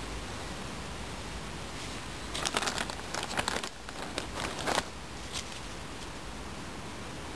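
Plastic sheeting crinkling as it is handled: a flurry of crackles from about two and a half to five seconds in, with one more shortly after, over a steady hiss.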